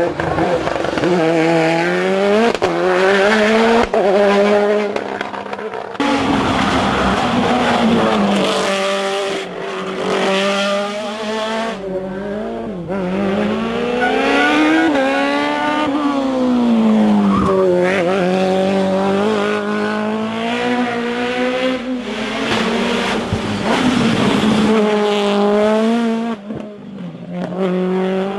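Hill-climb racing cars' engines revving hard, one car after another. The pitch rises and falls again and again, with abrupt changes where one car gives way to the next.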